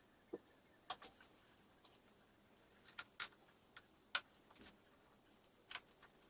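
Irregular sharp clicks and taps of hard plastic trim and small parts being handled and fitted, about seven in six seconds with the loudest about four seconds in, over a very quiet background.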